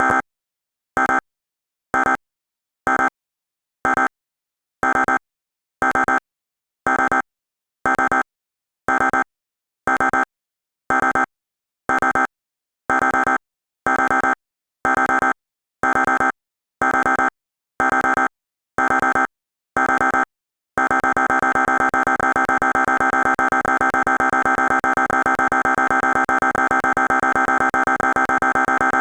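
Electronic emergency-alert tones: a short beep about once a second, about twenty times, then a steady continuous alert tone from about 21 seconds in.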